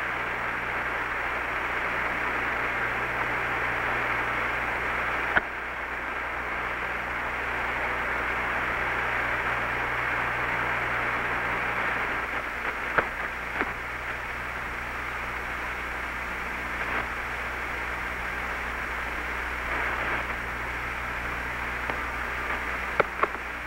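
Steady hiss of the Apollo 11 air-to-ground radio link with no voices on it: a band-limited static with a low hum underneath and a few sharp clicks, about 5, 13 and 23 seconds in.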